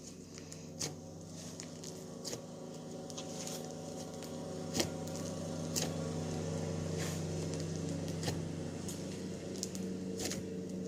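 Hand-played slime being squished and poked, with irregular sharp clicks and pops, the loudest about halfway through, over a steady low hum.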